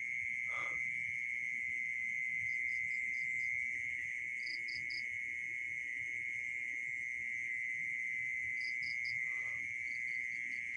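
Night insect chorus: a steady high-pitched trilling of crickets, with short chirps in groups of three or four every few seconds. A brief faint lower sound comes about half a second in and again near the end.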